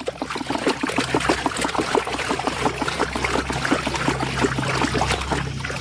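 Running water trickling and splashing over a toy as it is washed.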